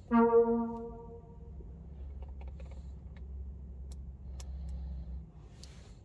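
A single brassy synthesizer note from a sampled Minimoog Model D sound starts loud and fades over about a second and a half. A low, steady bass tone follows and stops shortly after five seconds in. There are a couple of faint clicks near the four-second mark.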